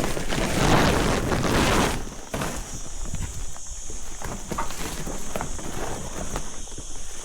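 Leafy cut branches rustling and crackling as they are handled: a loud rush of rustling for the first two seconds, then irregular snaps and crackles.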